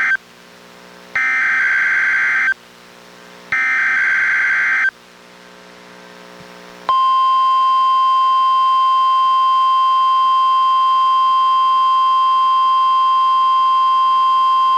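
NOAA Weather Radio SAME data header: short buzzy bursts of digital data, about a second and a half each, two of them heard in full. After a pause of about two seconds the steady single-pitch 1050 Hz Warning Alarm Tone starts, about seven seconds in, sounded as the weekly test of receivers' warning alarm.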